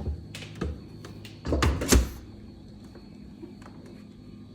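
Samsung French-door refrigerator being handled: a couple of light knocks, then a heavier pair of thuds about a second and a half in, as its drawers and doors are moved and shut.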